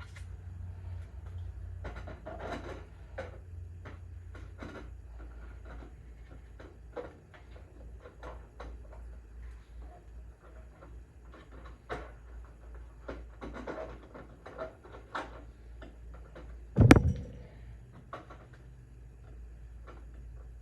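Plastic tail-light parts being handled and pressed into place on a motorcycle's rear fender: scattered light clicks, taps and rustles, with one louder knock about 17 seconds in. A steady low hum runs underneath.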